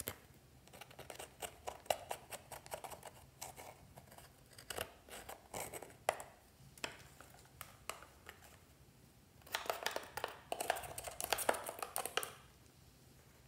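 Metal spatula scraping and breaking up pressed powder eyeshadow in a palette: a run of small scratchy scrapes and clicks, with a busier, louder stretch of scraping near the end.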